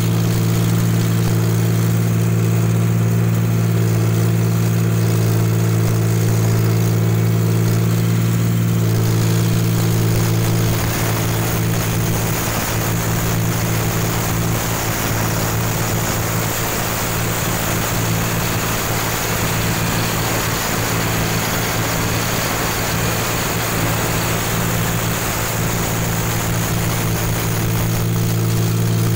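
Rice combine harvester running steadily, heard from on board: a constant low engine and threshing drone with a hiss of threshed grain pouring from the auger spout into the grain tank. It eases slightly and grows rougher from about ten seconds in, then steadies again near the end.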